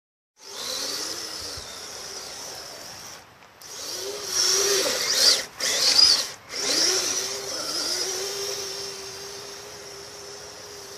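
Kyosho Blizzard FR radio-controlled tracked vehicle's electric motor whining, its pitch rising and falling with the throttle, over a steady hiss from the drive and tracks. The motor cuts out briefly about three seconds in and twice more around the sixth second.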